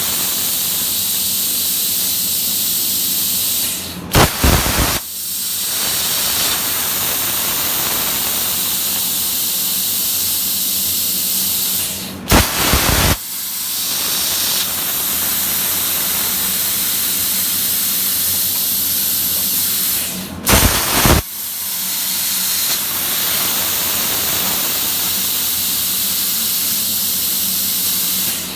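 Plasma cutter on an ArcDroid portable CNC cutting steel: a loud, steady hiss of the arc and air jet. About every eight seconds the hiss dips briefly and a short burst of sharp crackles breaks through.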